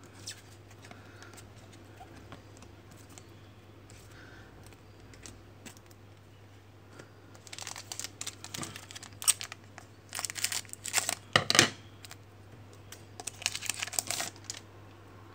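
Foil wrapper of a Panini Select trading card pack being crinkled and torn open by hand, in several crackling bursts through the second half, after a quieter stretch of light handling.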